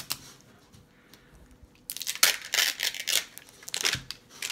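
Plastic wrapping of an L.O.L. Surprise ball crinkling and tearing as it is pulled open by hand. A quiet first two seconds with a few small clicks, then a dense run of crinkling and tearing for about two seconds.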